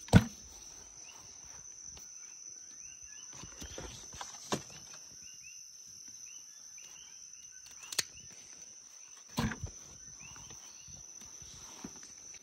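A steady, high-pitched drone of night insects, with short repeated chirps beneath it. A few sharp knocks and handling thumps break in, the loudest right at the start as dragon fruit is dropped into a plastic tub.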